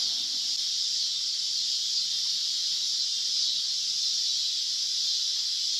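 Steady, high-pitched chorus of night insects, a continuous shrill drone that holds unchanged.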